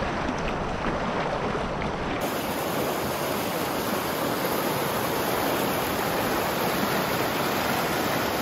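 River rapids rushing steadily. About two seconds in, the sound changes abruptly to a brighter, hissier rush of white water.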